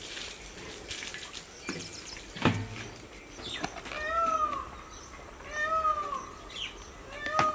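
An animal cries three times in the second half, each cry short and rising then falling in pitch, about one and a half seconds apart. Before the cries come light clicks and a single sharp thump.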